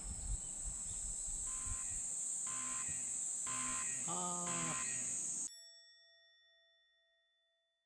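A high steady insect drone over open-air ambience cuts off abruptly about five and a half seconds in. In its place comes a single bell-like chime sound effect that rings on and slowly fades out.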